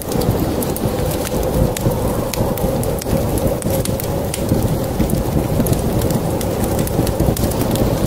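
Wood fire crackling, with irregular sharp pops several times a second, over a dense, steady low rumble of rain.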